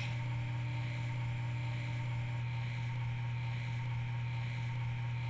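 Synthesized spindle sound effect of a CNC machining simulator: a steady, even machine hum, a strong low tone with a fainter higher one, as the simulated end mill turns.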